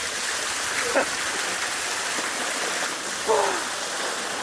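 Creek water running steadily as a person gets into the stream to wash. A brief sharp sound comes about a second in, and a short exclamation falling in pitch a little after three seconds.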